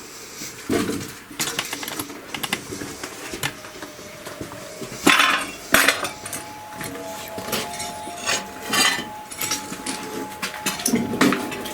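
Footsteps crunching and clinking over scattered debris on a hard floor, with irregular clicks and knocks, busiest about halfway through. A faint steady high tone comes in about halfway and holds.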